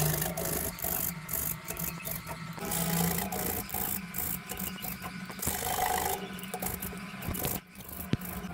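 A tomato being grated on a small handheld stainless-steel grater: repeated rasping scrapes as the flesh is rubbed across the blades.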